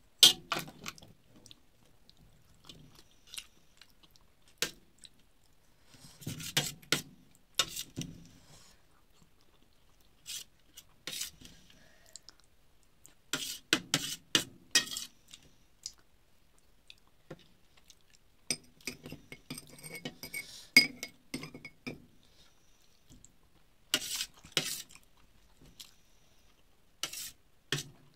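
Steel spoon scraping and clinking against a stainless steel plate while scooping soft khichdi, in clusters of sharp clicks every few seconds, with chewing and mouth sounds of eating between.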